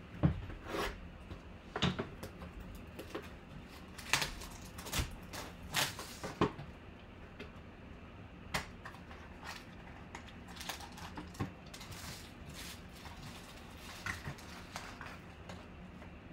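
A sealed trading-card hobby box being cut open and unwrapped by hand: plastic wrap crinkling and tearing, cardboard flaps and the pack inside being handled. It comes as a string of sharp crackles and clicks, busiest in the first six seconds and sparser after.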